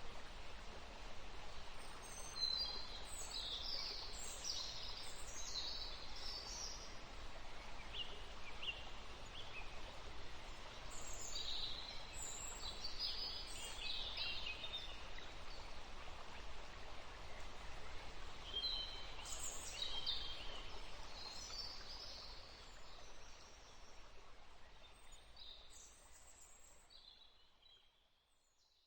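Outdoor ambience: a steady hiss of background noise with birds calling in several bouts of short, high chirps, fading out near the end.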